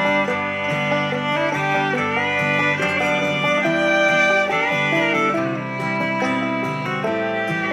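Country-style music with fiddle and guitar, played at 75% volume through a Muzen Wild Go palm-sized Bluetooth speaker with a 36 mm driver.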